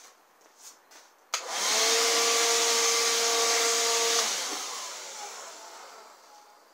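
Electric vacuum cleaner switched on with its wand inside the inner pot, running with a steady whine for about three seconds, then switched off and winding down.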